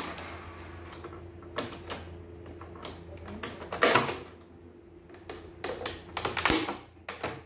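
Hand tools and handling on a CNY E900 embroidery machine: a screwdriver clicking and scraping against the metal needle-bar mechanism, with scattered knocks of the plastic body on the wooden bench, louder about four seconds in and again near the end as the machine is turned. A faint steady hum runs underneath.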